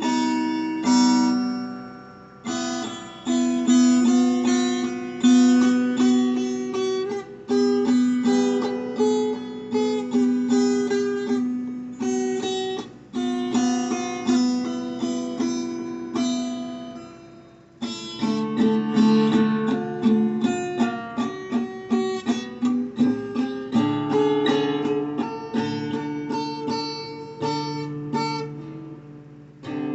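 Acoustic guitar playing alone. Chords are struck and left to ring out, each dying away over a second or two, then strummed more busily from a little past halfway.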